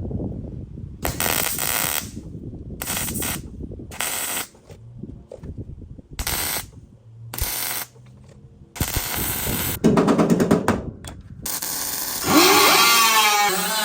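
MIG welder laying short tack welds on sheet steel: a string of crackling bursts about a second long with brief pauses between them. Near the end a louder whirring sound comes in and swoops up and down in pitch.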